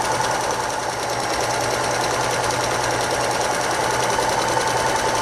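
Singer electric sewing machine running steadily at speed, sewing a zigzag stitch through stacked ribbon and lace: a rapid, even needle rattle with a steady tone over it.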